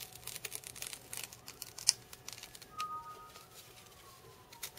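Backing liner being peeled off a sheet of double-sided adhesive, crackling in quick small ticks, with one sharp click about two seconds in. In the second half a faint siren glides slowly down in pitch.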